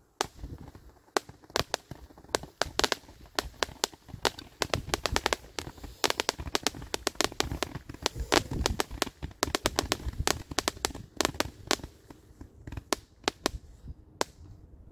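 Miracle Fireworks 'My Oh My' 200-gram, 500-shot firework cake firing in rapid succession. It makes a dense run of sharp pops, several a second, as the gold-tailed comets leave the tubes and the small coloured breaks go off overhead. The pops thin out near the end.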